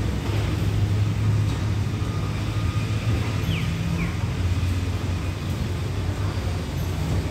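Steady low hum of an Alsthom diesel-electric locomotive idling while the train stands in the station. Two short, high, falling chirps come about halfway through.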